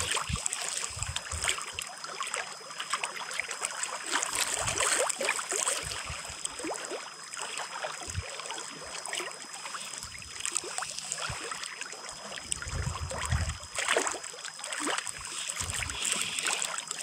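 Small choppy waves lapping and splashing against a stone riprap bank, with gusts of wind buffeting the microphone.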